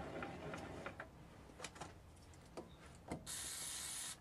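A steady hum that drops away about a second in, then a few light clicks and taps of metal parts being handled at the mini lathe. Near the end comes a one-second burst of hiss that cuts off suddenly.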